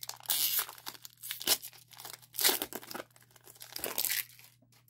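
Foil wrapper of a Pokémon trading-card booster pack being torn open and crinkled by hand, in a series of short rustling bursts.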